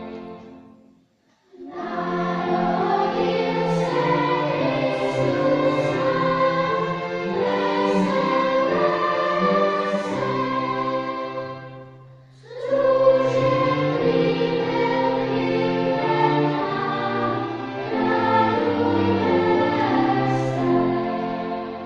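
Children's choir singing with a small string ensemble accompanying. It comes in after a short pause about a second and a half in, and sings two long phrases with a brief break about twelve seconds in.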